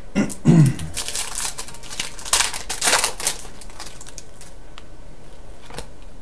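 Foil trading-card pack wrappers crinkling and rustling as they are handled, in irregular bursts, loudest about a second in and again around three seconds in.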